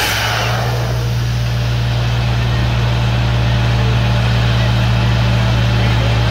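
DTH borewell drilling rig running steadily, its engine and air compressor giving a constant low drone with an even hiss over it.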